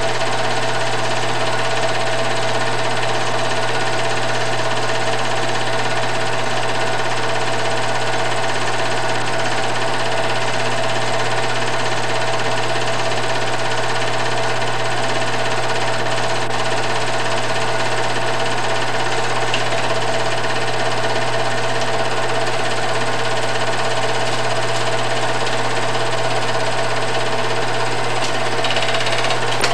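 Home-movie film projector running: a steady mechanical whir and clatter over a constant hum.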